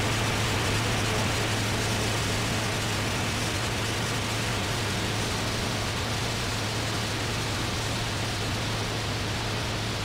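Circuit-bent electronics putting out a steady wash of static-like hiss with a low hum underneath, as a noise-music drone.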